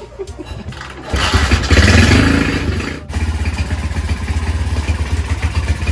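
Custom Honda CB motorcycle's single-cylinder engine being kick-started: a few knocks from the kick-starter, then the engine catches about a second in and runs with a loud, even low pulsing, dipping briefly about three seconds in.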